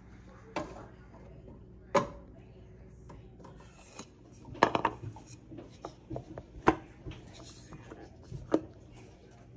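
Kitchen handling noises as food is spooned from a pan into glass meal-prep containers and bamboo lids are fitted on: a sharp knock or clatter every second or two, with light scraping and rubbing between.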